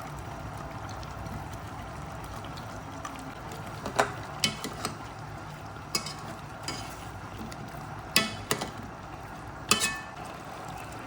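Cooking utensil stirring in a pot of food, clinking sharply against the pot several times from about four seconds in, over a steady low cooking hiss.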